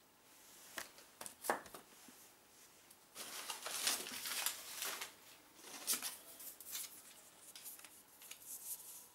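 Handling and rustling of plastic wrapping and cardboard packaging as fireworks are taken out of a cardboard box. There are a couple of short knocks about a second in, a longer stretch of rustling from about three to five seconds, and then scattered lighter rustles and taps.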